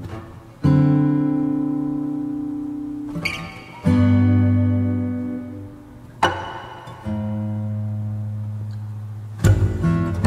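Background music: an acoustic guitar playing slow chords, each struck and left to ring out before the next, a new chord every one to three seconds.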